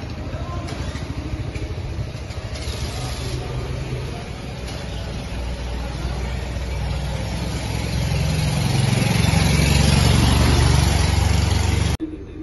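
A vehicle engine runs close by, a steady low drone that grows louder over the last few seconds and then cuts off suddenly near the end.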